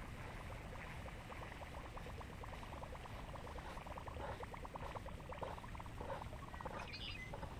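Fishing reel being cranked to bring a lure back across the water surface: a fast run of light ticks that stops about six and a half seconds in.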